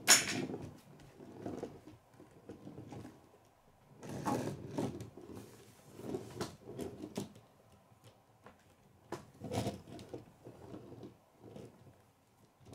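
K'nex toy truck rolled back and forth on a wooden table, its plastic wheels and snapped-together plastic parts rattling and clicking in irregular bursts, with a sharp knock at the start.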